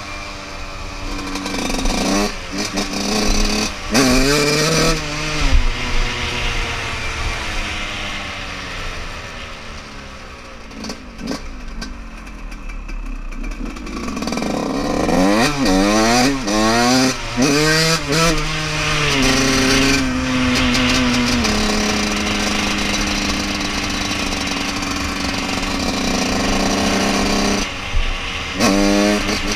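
Yamaha YZ125 single-cylinder two-stroke dirt bike engine under way, its pitch climbing and falling as it revs through the gears. About ten seconds in it falls back and quietens, then gives several quick rising revs and holds a steady high pitch, dipping briefly near the end. It is being ridden high in the revs to clear fuel from a loaded-up carburettor.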